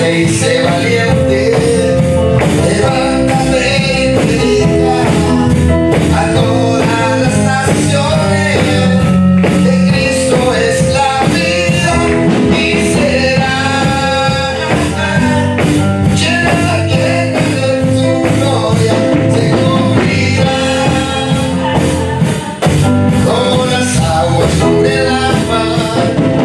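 Worship music: singing over an instrumental band, with percussion keeping a steady beat.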